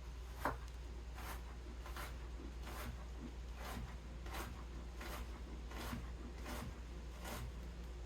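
Knife dicing onion on a cutting board: evenly paced chops, about one every three-quarters of a second, the first the loudest, over a steady low hum.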